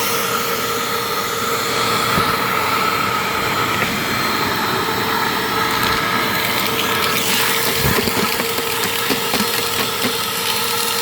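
Dirt Devil Powermax Pet vacuum cleaner running steadily, its motor giving a constant whine over the rush of its suction, while being fed liquid that is being drawn toward the motor.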